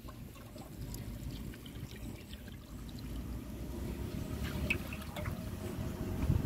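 Water sloshing and trickling in an aluminium pot holding live catfish, with a few small splashes a little past the middle, over a low steady rumble.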